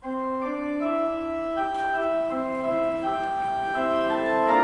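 Organ starts playing suddenly, sustained chords that move from one to the next every half second or so.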